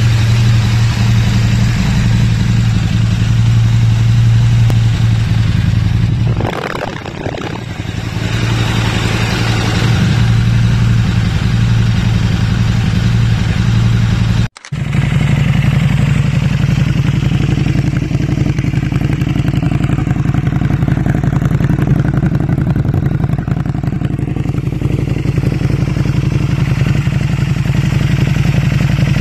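KTM 1290 Super Duke R's 75° V-twin idling steadily through its exhaust. The sound drops out briefly about halfway through, where a second recording of the bike idling begins.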